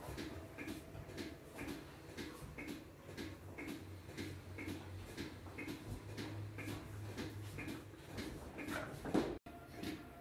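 Steady mechanical ticking, about two ticks a second, with a low hum joining in the middle; a short louder noise comes just before a brief dropout near the end.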